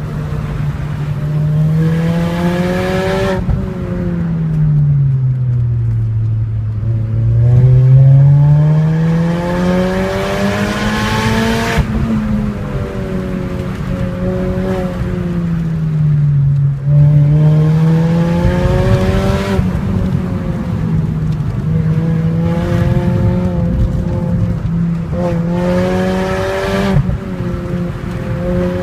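Mini Cooper S John Cooper Works GP engine and exhaust while driving. The revs sink over the first several seconds, then climb to a peak about twelve seconds in and drop suddenly. They dip again around seventeen seconds, then hold fairly steady with small rises and falls.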